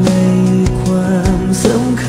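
Background music: a pop song with a steady beat.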